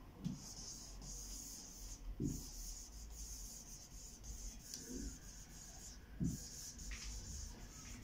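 Dry-erase marker rubbing and squeaking on a whiteboard as words are written out in cursive, in long strokes with short breaks between them.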